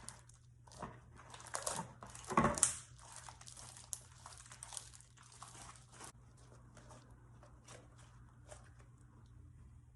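Hands kneading and squishing butter slime, glue slime with clay mixed in: irregular sticky crackles and squishes, loudest in the first three seconds, then fainter small clicks.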